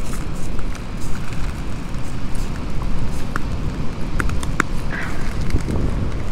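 Wind rumbling on the microphone over a wood campfire that crackles with scattered sharp pops.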